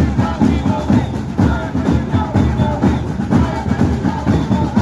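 Loud music with a steady electronic beat.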